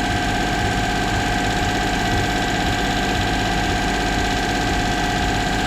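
Toyota Duet's small petrol engine idling steadily at a raised idle speed, with a steady whine over it. The idle stays high and does not change when the idle air control valve is moved, which the owner takes for air being drawn in somewhere.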